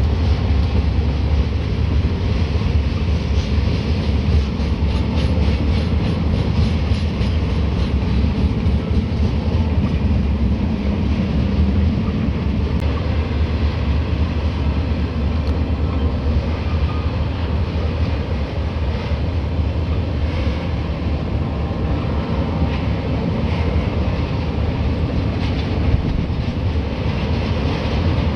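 HO scale model freight train rolling past, its freight cars' wheels clattering steadily on the rails over the low drone of the lead EMD diesels' sound-decoder engine sound.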